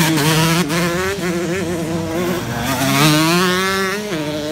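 Motocross dirt bike engine revving hard under acceleration, its pitch wavering. The pitch climbs steadily about three seconds in, then drops sharply near four seconds.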